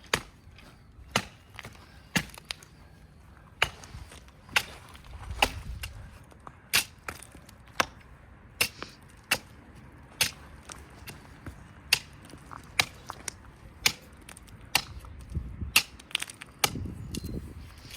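Axe chopping into a tree trunk, sharp strikes at roughly one a second with a few quicker pairs, cutting a girdle ring through the bark and sapwood.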